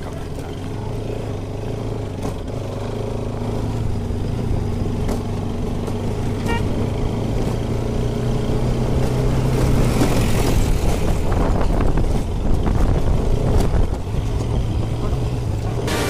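Motorcycle engine running under way, heard from on the bike, growing louder as it picks up speed, with wind noise. A short horn beep sounds a little before halfway.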